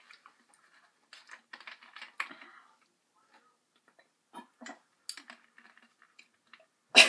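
Plastic drink bottle being handled: small clicks and ticks as its screw cap is twisted, around a drink, then a single sharp knock near the end, the loudest sound.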